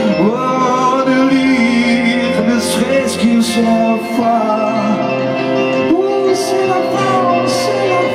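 Live rock band playing a song: electric guitars, bass and drums under a sung vocal melody, with cymbal crashes about three seconds in and again near the end. Heard from within the audience through a phone microphone.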